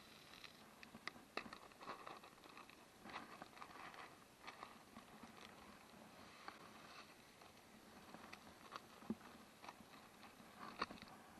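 Faint, irregular crackles and small clicks of wood and kindling at a campfire, with a couple of sharper snaps near the end.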